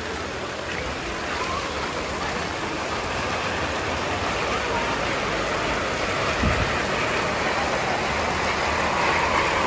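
Heavy tropical rain falling steadily on a flooded street, a dense even hiss, with a short low thud about six and a half seconds in.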